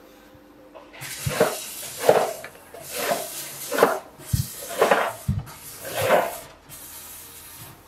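Repeated scraping strokes on a foam concrete block mould, about one a second, with a few dull low knocks among them.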